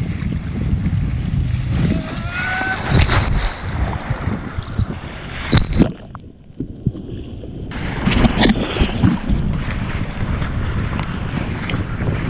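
Wind buffeting an action camera's microphone over choppy lake water, with the splash and spray of a kiteboard skimming and landing: several sharp splashes stand out. A brief rising whistle comes about two seconds in, and for a second or two midway the sound drops and goes muffled before the wind and spray return.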